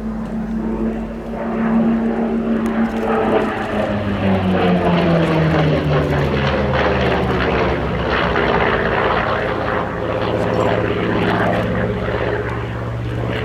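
Piston-engined propeller aircraft flying past, its engine note dropping in pitch as it goes by, then running on at a steadier, lower pitch.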